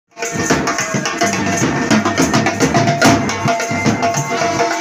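Band music: drums beating a fast, steady rhythm under held melody tones.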